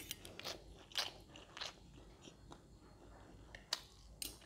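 Close-up chewing of crispy fried pork cracklings (tóp mỡ) with fried rice: a handful of short, irregular crunches.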